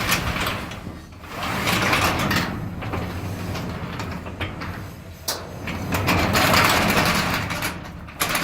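Steel sectional garage door rolling along its tracks on new non-bearing rollers, a continuous rumble of travel that swells twice, with a low steady hum underneath.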